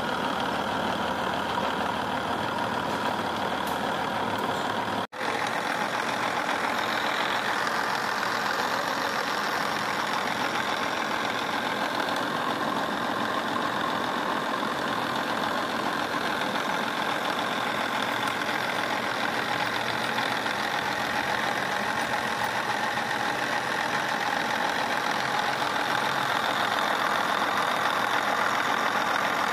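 Milling machine cutting a V-groove into a metal block with a spiral end mill under coolant: a steady machining noise with a few held tones. The sound cuts out for an instant about five seconds in.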